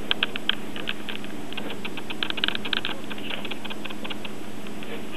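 English Bulldog puppy's mouth smacking and clicking as she chews and licks, in short irregular clusters of quick clicks, densest around two to three seconds in, over a steady low hum.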